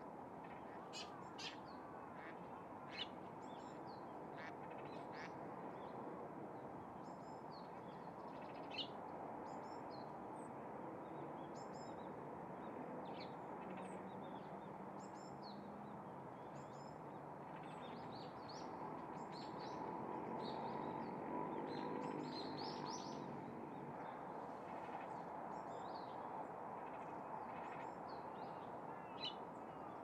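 Calls at a great cormorant nesting colony: many short high chirps scattered throughout, with a louder stretch of lower, rough calls about twenty seconds in, over a steady background rush.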